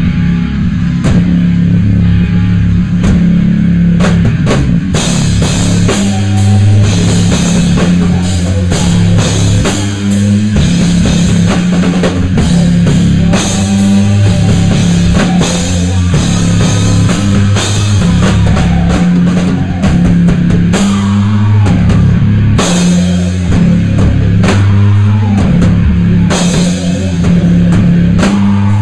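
Live rock band playing loud, the drum kit to the fore with dense snare and bass-drum hits and cymbal crashes over sustained low notes.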